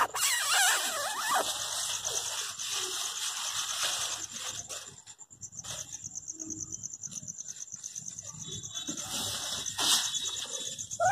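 A cat eating from a foil wrapper: soft, irregular licking and chewing sounds, with a short high cry near the end.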